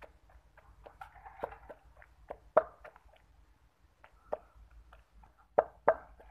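Wooden pestle pounding tomato, onion and boiled potato in a stone mortar: a run of irregular thuds, two or three a second, the loudest about two and a half seconds in and near the end.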